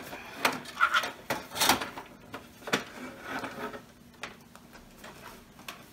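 The open metal chassis of a Compaq Presario 4660 desktop being gripped and shifted across a hard floor: a series of knocks and clunks over the first three seconds, then fainter handling noise.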